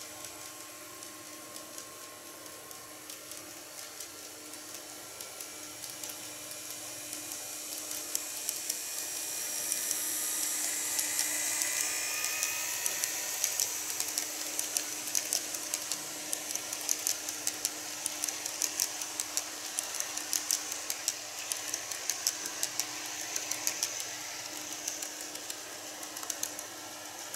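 N-scale KATO model train, a DF200-7000 diesel locomotive hauling 77 series passenger cars, running on curved model track. Its motor whine and wheel hiss grow louder as it approaches and passes, with a quick run of clicks from the wheels crossing the rail joints. The sound fades again near the end.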